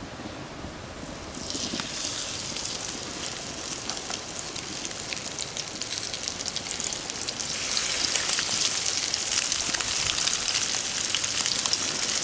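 Crumbed coral trout sizzling as it fries in hot oil in a pan. The sizzle starts about a second in and grows louder after about seven seconds.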